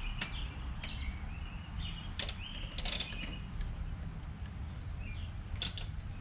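Hand socket ratchet clicking in a few separate sharp strokes, a quick pair near the end, as a bolt on an oil catch can mount is worked. Faint bird chirps.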